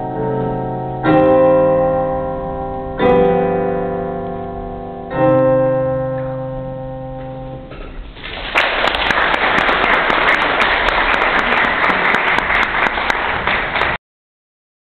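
Piano sounding the last three chords of a piece, each struck about two seconds apart and left to ring and fade. The audience then starts clapping about eight seconds in, and the applause cuts off abruptly near the end.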